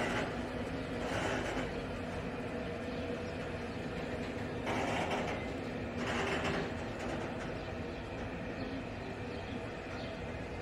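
Covered freight wagons of a train hauled by a Siemens Vectron electric locomotive rolling past on the rails: a steady rumble of wheels on track, with a few brief louder swells.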